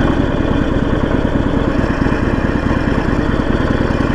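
Harley-Davidson Sportster 1200's air-cooled V-twin engine running steadily, a fast even stream of firing pulses.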